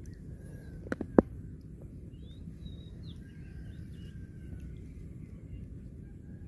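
Faint bird chirps and short whistles over steady low outdoor background noise, with two sharp knocks a little after a second in.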